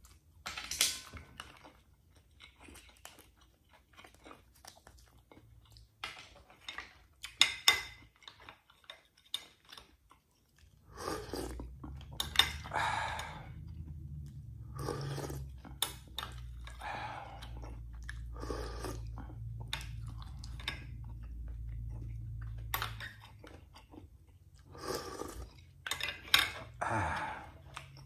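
Close-up eating sounds of a person chewing steamed mussels and fried milkfish: wet chewing and smacking with scattered sharp clicks and a few crunches. A low steady hum comes in about eleven seconds in and stops a few seconds before the end.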